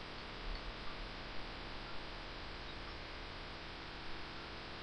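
Quiet, steady background hum and hiss on the recording, with a few faint light ticks in the first two seconds.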